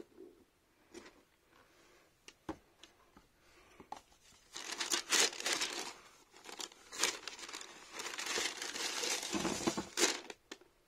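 Cardboard shoebox being handled and opened with a few light knocks, then tissue paper inside rustling and crinkling for about six seconds as it is pulled back, with a soft thump near the end.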